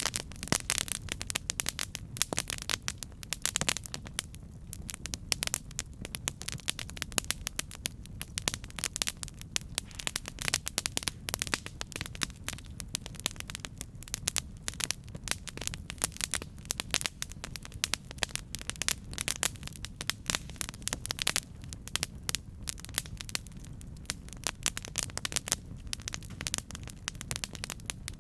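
Campfire burning with dense, irregular crackles and pops over a steady low rumble of the flames.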